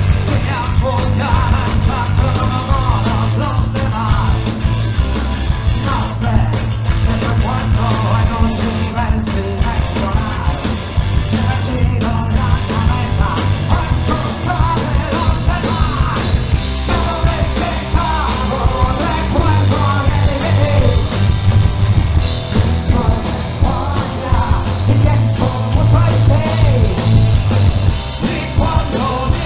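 Punk rock band playing live on stage: electric guitar, bass guitar and drums, with a singer singing into a microphone over them.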